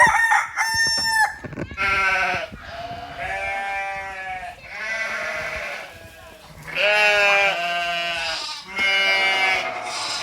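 Farm animals calling: a rooster crowing and goats bleating, a run of separate calls each about a second long.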